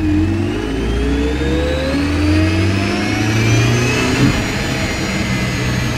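The M271 supercharged four-cylinder engine of a 2003 Mercedes C180 Kompressor pulling the car away under load, its pitch rising steadily through the first few seconds. There is a short knock about four seconds in.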